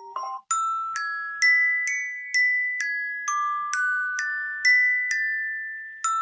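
iPhone SE preset ringtone: a run of bright, ringing chime notes, about two a second, overlapping as they sustain. The melody starts about half a second in, right after the previous ringtone cuts off.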